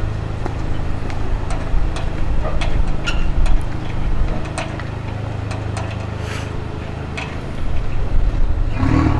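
Vanderhall Venice roadster's 1.5-litre turbocharged four-cylinder engine idling steadily, with a series of sharp clicks over it. It swells louder near the end as the car pulls away at low speed.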